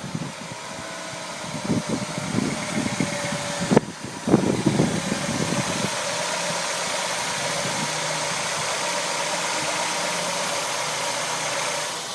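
A 1995 Acura Integra's four-cylinder engine running just after starting from a crank-no-start fault. It is uneven for the first few seconds, with a sharp click about four seconds in, then settles into a steady idle.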